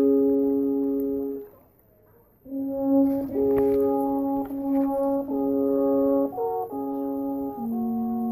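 Alphorn playing a slow melody of long held notes. The first phrase ends about a second and a half in, and after a short pause a new phrase of several notes begins, ending on a long, steady low note.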